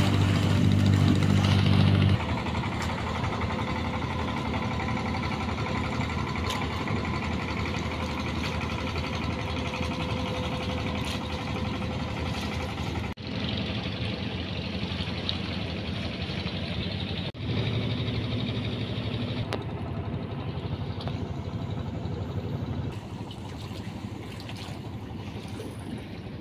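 Small boat's engine running, heard from aboard, loudest in the first two seconds. The sound then drops and changes abruptly several times.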